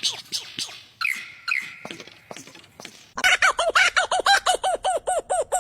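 Chicken clucking and squawking in scattered short calls, then a fast, loud run of repeated clucks, about five a second, from about three seconds in.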